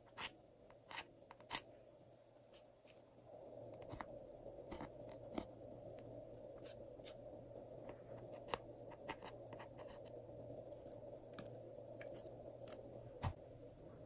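Metal spatula scraping and picking at pressed eyeshadow in a palette: faint, irregular sharp clicks and scratches, a few to several a second.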